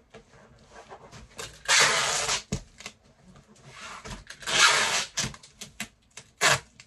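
Packing tape pulled off the roll across a cardboard box in two long rips of about a second each, with a short third rip near the end and a thump after the first.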